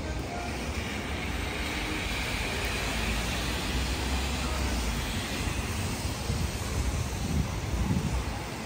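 Street traffic noise: a vehicle passes with a steady rushing sound, and a low rumble swells near the end.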